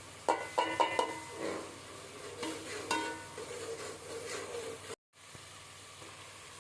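A metal spoon knocks and scrapes against a cooking pot while carrots and fenugreek are stirred over the heat, with sizzling underneath; the first few knocks ring briefly. The sound cuts off suddenly about five seconds in, leaving only a faint hiss.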